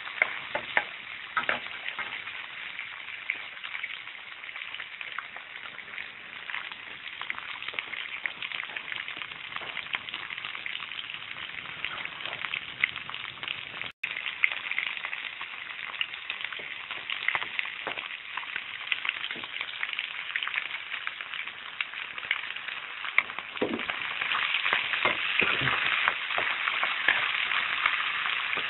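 Sliced vegetables sizzling and crackling in hot oil in a wok while a metal spatula stirs and scrapes them, with many small clicks. The sizzle breaks off for an instant about halfway and grows louder over the last few seconds.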